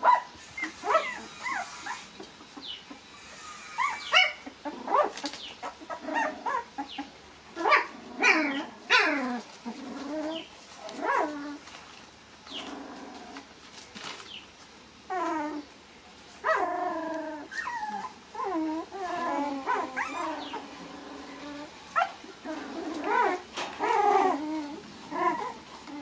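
Young puppies whimpering and yipping: many short high calls that slide in pitch, one after another, sometimes overlapping.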